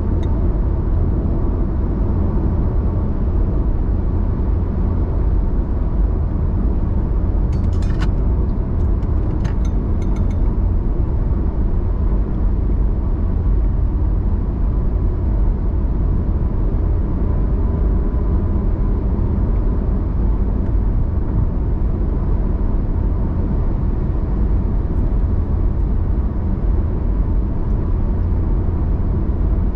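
Steady low rumble of a car cruising at highway speed, tyre and engine noise heard from inside the cabin. A few brief sharp clicks come about eight to ten seconds in.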